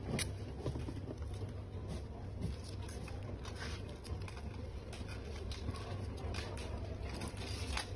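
Light handling noise: scattered soft clicks and crackles of insulating tape and thin wires being worked by hand around a steering-wheel hub, over a steady low hum.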